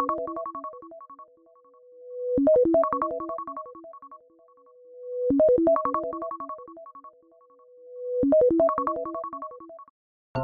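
iPhone ringtone from iOS 17 playing on a loop. A short phrase of quick melodic notes repeats about every three seconds, with a soft tone swelling up before each repeat, and it stops just before the end.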